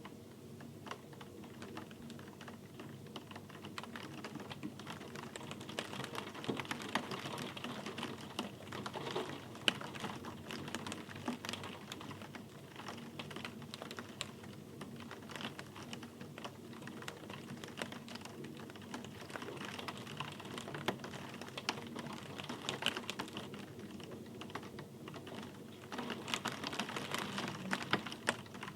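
Rain falling, heard as many close, distinct drops ticking irregularly over a soft hiss, a little louder near the end.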